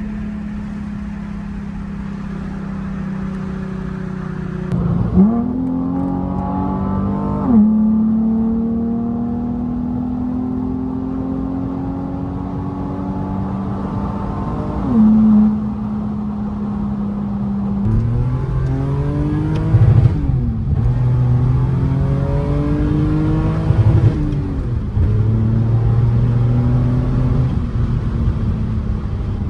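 A car engine being driven through the gears. A steady drone for the first few seconds, then the revs climb and fall back sharply at each gear change, several times over.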